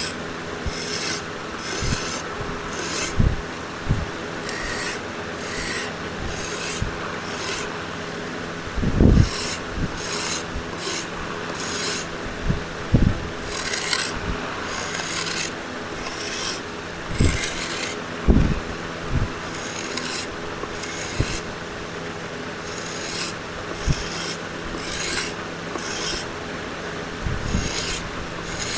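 Oak being worked by hand in repeated scraping strokes, roughly one a second, with a few dull knocks now and then.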